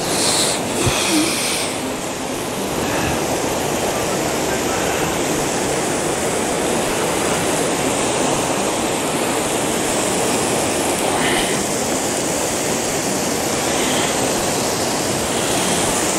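Steady rush of water from a waterfall spilling down a rocky slope and a fast, muddy river in spate below.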